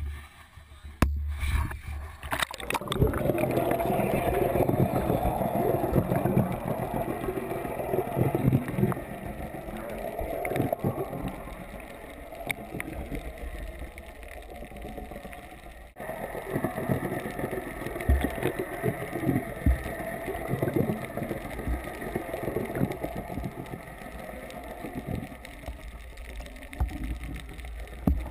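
Muffled underwater noise from a submerged action camera: a steady rushing, churning wash of water with many small pops and knocks, broken by a short gap about halfway through.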